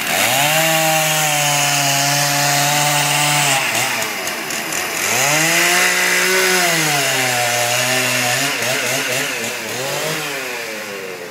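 Chainsaw carving wood: revved up and held for about three seconds, eased off, revved again for a couple of seconds, then a shorter rev before the engine falls back toward idle near the end.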